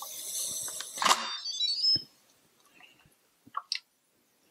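Instant Pot electric pressure cooker playing its short electronic chime, a run of stepped high tones ending on a rising phrase, as the lid is twisted open. A hiss and a sharp click of the lid come about a second in, then only faint clicks of the lid being lifted.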